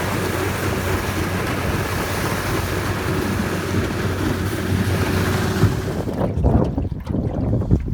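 A motor running steadily with a constant hum. About six seconds in the hum gives way to wind buffeting the microphone and a few low thumps.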